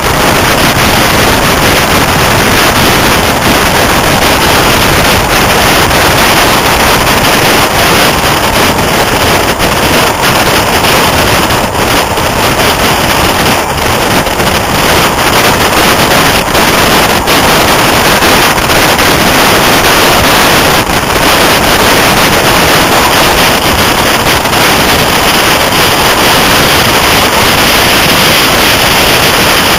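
Heavy, steady wind roar on a microphone held out of the window of a High Speed Train (InterCity 125) running at speed, mixed with the train's rushing running noise.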